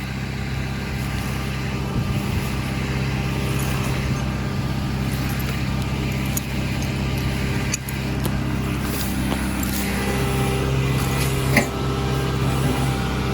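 Heavy digging machine's engine running steadily, with a few small knocks and a sharp tick a little before the end.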